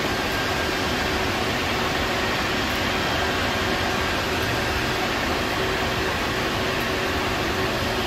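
Steady whirring rush of cooling fans in a rack of network equipment, with a faint steady hum and thin whine running through it.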